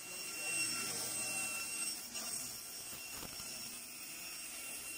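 Fish belly-cutting and halving machine running, its motor driving the twin belt conveyors and blade with a steady high whine.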